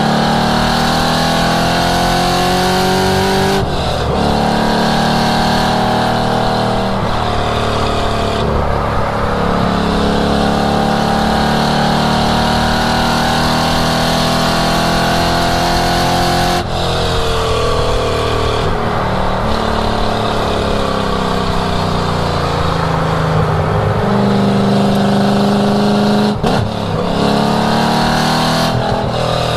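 1967 Ford Mustang's V8 engine at full song on a race track, heard from an onboard microphone. The engine's pitch climbs under hard acceleration and falls sharply about four times as it shifts gears or lifts off, then climbs again.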